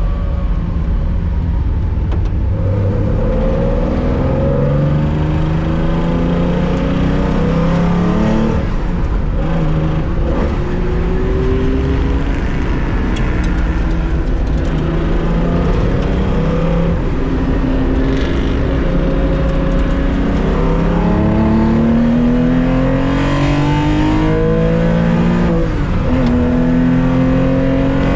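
Onboard sound of a 1965 Porsche 911 2.0's air-cooled flat-six accelerating hard, its pitch climbing through each gear and dropping at every shift, again and again.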